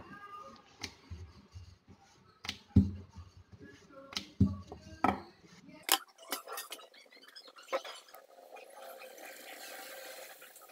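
A wooden rolling pin knocking and rolling on a board as puri dough is rolled out, with several sharp knocks. About six seconds in it gives way to hot oil sizzling steadily, growing louder, as a puri deep-fries in a pan.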